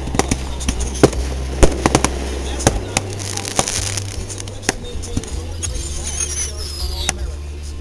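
Aerial fireworks shells bursting: a run of sharp, irregular bangs and crackles, loudest in a cluster around the first two seconds.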